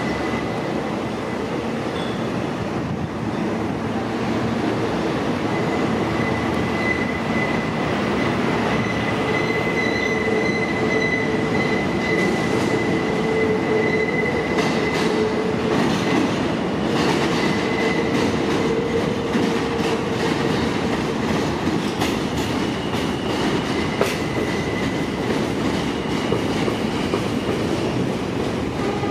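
R160A-1 subway trains arriving on elevated steel track, their wheels giving a steady high-pitched squeal with a lower tone under it. About halfway through, rapid clicks and clacks join in as the wheels run over switches and rail joints.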